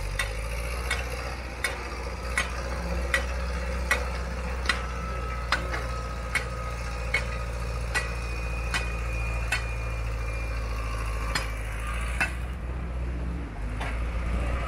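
Sharp metallic clicks at an even pace, about one every 0.8 seconds, as a large nut on a heavy rusted pulley block is turned off with a bar; the clicks stop near the end. Under them runs the steady low drone of an engine.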